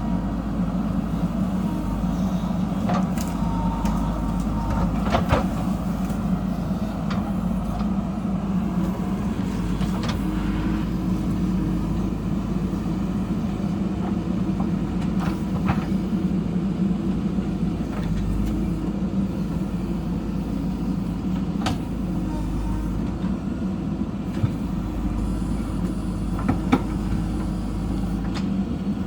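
JCB backhoe loader's diesel engine running steadily under work, with occasional short sharp knocks scattered through.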